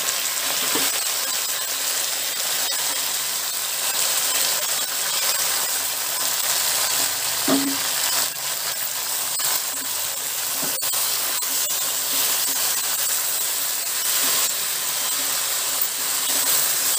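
Washed gongura (sorrel) leaves sizzling in hot oil in a steel kadai: a steady hiss as the wet leaves cook down. A wooden spatula stirs the leaves near the end.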